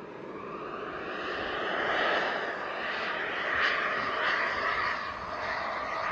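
Twin model jet turbines of an RC F-22 Raptor flying past: a jet whine and rush that rises in pitch and swells over the first two seconds, loudest about two and again about four seconds in.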